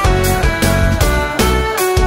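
Background music with a steady beat and held instrument notes.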